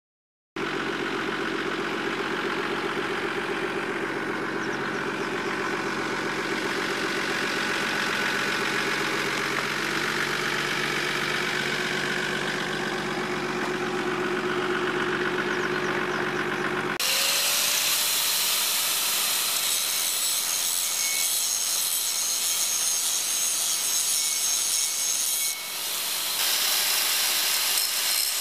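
A steady humming drone for about sixteen seconds, then an abrupt switch to an angle grinder grinding the steel rail: a harsh, hissing grind with a faint whistle in it.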